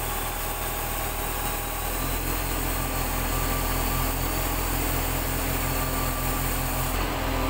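Sany 25-ton truck crane's diesel engine running steadily with an even low throb, and a faint steady whine joining about two seconds in.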